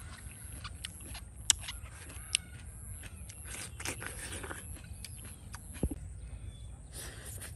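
A person eating: chewing and crunching food, with scattered sharp clicks, three of them loud, and short scrapes.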